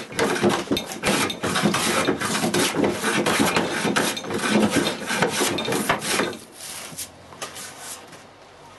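Hand plane taking shavings off a wooden board in quick repeated strokes, the blade scraping and hissing across the grain. The strokes stop about six seconds in, with a few fainter ones after.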